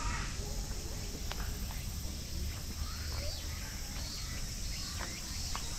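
Woodland ambience: a steady high drone of insects, with short bird chirps scattered through it and a low rumble underneath.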